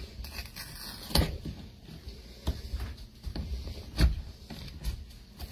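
A new plastic spice jar being handled and opened on a table: scattered clicks and knocks, the sharpest about a second in, at two and a half seconds and at four seconds.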